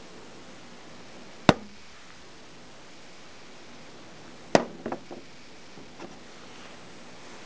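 Sharp knocks of something hard on a hard surface: a single knock about a second and a half in, then a louder knock about halfway through followed by a few quick smaller knocks, like a small hard object bouncing.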